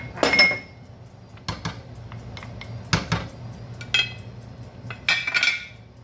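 A wooden spoon stirring soup in a pot and knocking against the pot, giving a handful of separate sharp clinks and knocks, a few of them with a short ringing tone.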